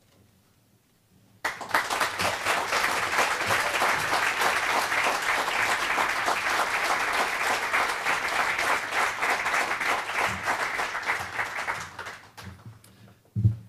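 Audience applauding. The clapping starts abruptly about a second and a half in, holds steady, and dies away near the end.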